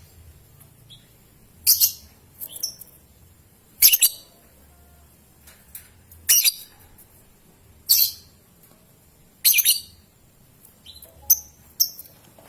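Young lovebird giving short, sharp, high-pitched chirps, about eight in all, one every one and a half to two seconds, some in quick pairs.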